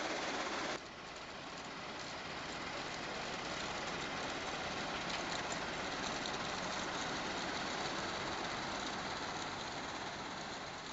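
Steady din of a C&D waste recycling plant running, a continuous machinery noise with no distinct rhythm. About a second in it drops suddenly and then slowly builds back up.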